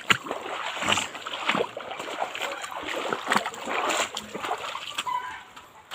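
Feet wading through a shallow, rocky stream, with irregular splashing and sloshing over the running water.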